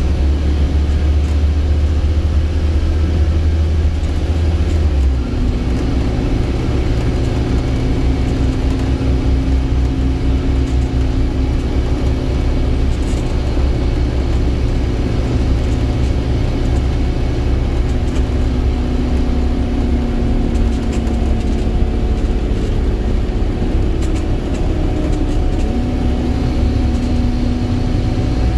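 Scania single-deck bus's diesel engine and driveline heard from inside the passenger saloon while the bus is under way: a loud, deep, steady drone with a steady whine over it. The low drone drops and changes about five seconds in, and the whine steps up in pitch near the end.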